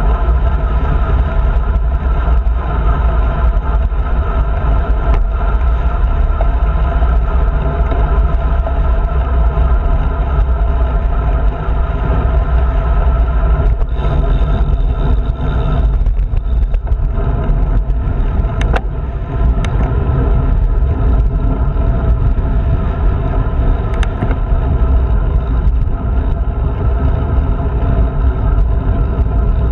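Wind buffeting a handlebar-mounted action camera's microphone on a moving road bike, a steady low rumble mixed with tyre noise on asphalt. A few short clicks come in the second half.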